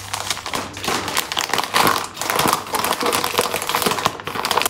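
Plastic food packets crinkling and rustling as they are handled and wiped down with a wet wipe: a dense, irregular run of crackles.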